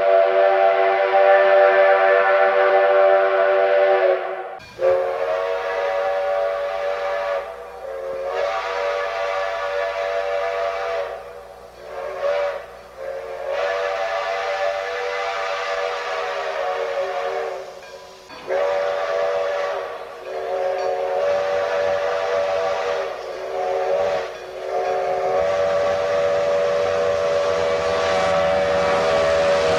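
Multi-chime steam locomotive whistle sounding a chord of several notes. One long blast cuts off about four and a half seconds in. It is followed by a string of long and short blasts over a low rumble, each bending up slightly in pitch as it opens.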